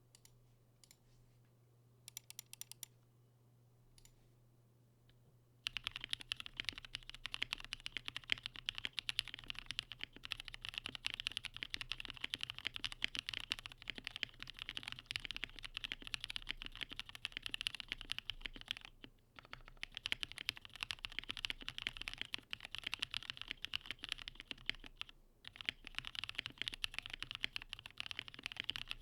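Typing on a KBDfans KBD67 Lite mechanical keyboard, built plateless on a silicone pad, with lubed Kailh black-stem linear switches in Cherry MX housings and PBT keycaps. A few keystrokes come about two seconds in. From about six seconds there is continuous fast typing, broken by two brief pauses later on.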